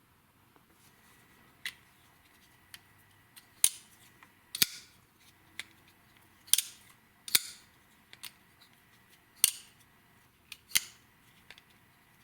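CRKT Ruger Hollow Point +P folding knife blade being flicked open on its IKBS ball-bearing pivot and closed again, over and over, with a dozen or so sharp metallic clicks and snaps at uneven intervals as the blade locks open and shuts.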